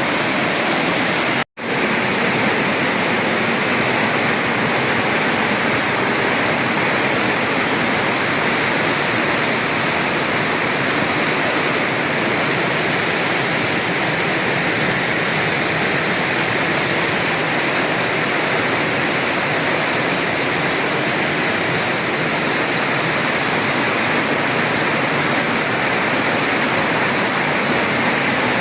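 Waterfall: a steady, loud rush of falling water, cutting out for an instant about a second and a half in.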